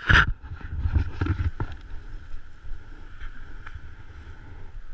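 Wind buffeting a camera microphone, a steady low rumble, with one loud knock right at the start and a few smaller knocks over the next second and a half.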